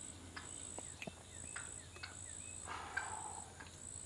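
A distant Osceola wild turkey gobbling once, a rattling call of under a second about three seconds in, over a steady pulsing insect trill and a few faint bird chirps.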